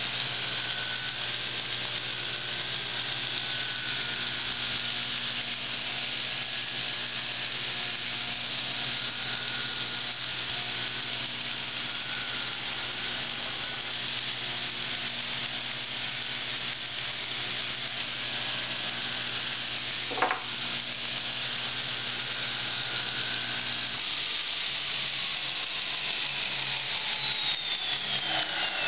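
Homemade belt grinder driven by a radial arm saw motor, running steadily with a motor hum and the hiss of the moving belt. A single sharp knock comes about twenty seconds in. In the last few seconds a whine falls steadily in pitch as the machine winds down.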